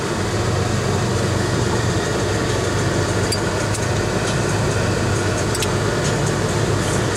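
Vehicle engine idling steadily, heard from inside the cab: a continuous low hum under an even hiss of air, with a few faint clicks.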